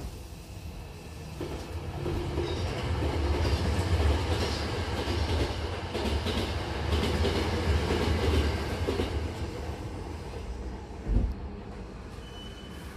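Hankyu Kobe Line train running, heard from inside the car by the doors: a low rumble and wheel clatter build up, then ease off near the end. There is a single thump about eleven seconds in and a brief high squeal just after.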